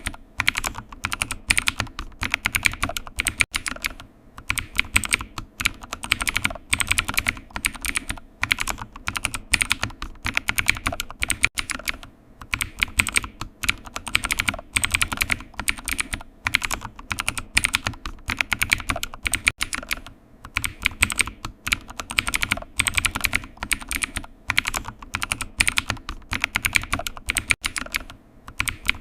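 Computer keyboard typing: runs of rapid keystroke clicks broken by brief pauses.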